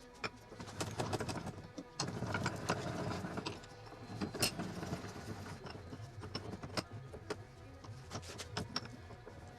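Irregular metallic clicks and knocks of metal parts or tools being handled, denser and louder for a second or so about two seconds in.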